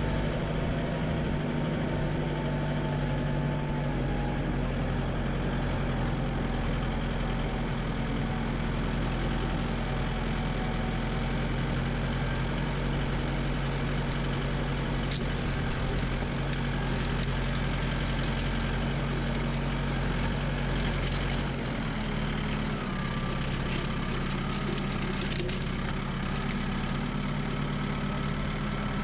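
Kubota tractor's diesel engine running steadily at a low, even speed, with a brief shift in engine speed about three-quarters of the way through.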